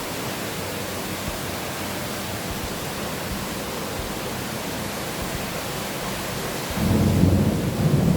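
Steady hiss of heavy rain, with a low rumble of thunder rising about seven seconds in.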